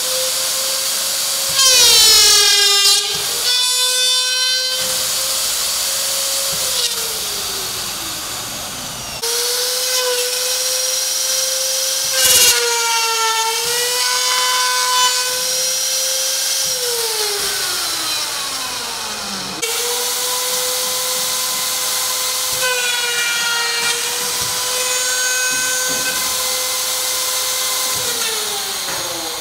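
Router motors of a uPVC drain-slot routing machine running at a high whine. The pitch sags briefly each time the end mills cut into the uPVC profile. The motors wind down and restart twice, then wind down a third time near the end.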